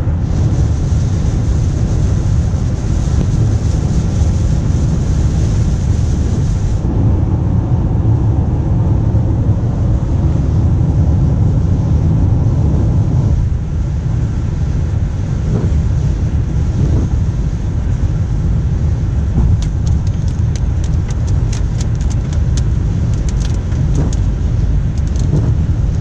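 Road noise inside a car cabin at highway speed on wet pavement: a steady low rumble of tyres and engine with a wash of wind and spray. Scattered light ticks come in over the last several seconds.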